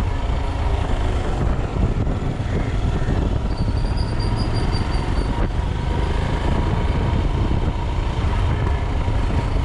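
Royal Enfield Himalayan's 411 cc single-cylinder engine running steadily as the motorcycle rides along at city speed, mixed with wind rushing past the handlebar-mounted microphone, on freshly changed engine oil.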